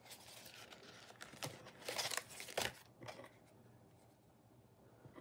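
Sheets of printed card stock rustling as they are handled and shuffled, with several sharper crackles over the first three seconds.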